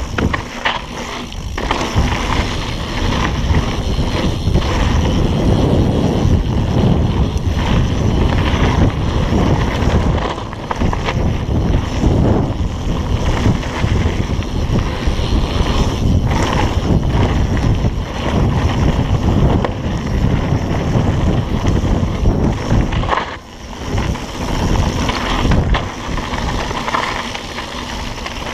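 Mountain bike riding fast down a dirt trail: wind rushing over the microphone, with tyre noise on the dirt and frequent knocks from the bike going over bumps. The rush drops off briefly about 23 seconds in.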